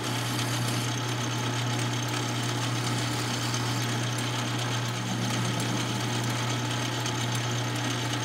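Metal lathe running at a steady speed, with a constant low hum.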